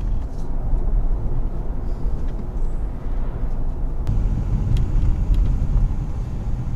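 Steady low road rumble inside the cabin of a moving Lexus, heard first in the LX 570 SUV and then in the LS 430 sedan. The rumble changes character about four seconds in.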